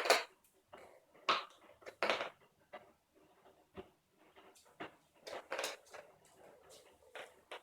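Scattered light taps, clicks and rustles of plastic Play-Doh toy pieces and modelling dough being handled on a tabletop, about a dozen small sounds at irregular intervals.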